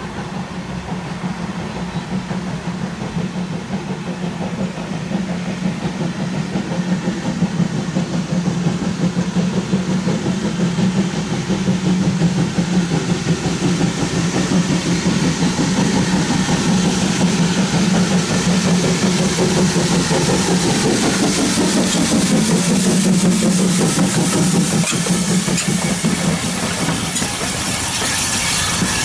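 Steam tank locomotive hauling coaches through the station, its working noise and the wheels on the rails growing louder over the first dozen seconds and then holding steady.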